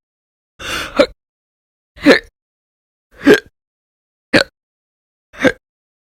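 A woman hiccuping loudly, five sharp hiccups about a second apart, each with a short breathy catch.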